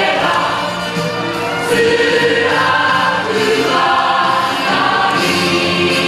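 Stage-musical cast singing together in chorus over instrumental accompaniment, held sung notes changing every second or so.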